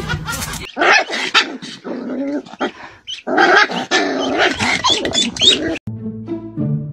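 A puppy growling and yapping in quick, broken-up vocal sounds for about five seconds, cut off abruptly near the end; background music starts after the cut.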